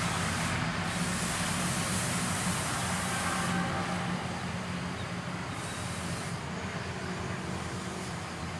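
A steady low mechanical hum and rumble from a vehicle out of sight, slowly fading.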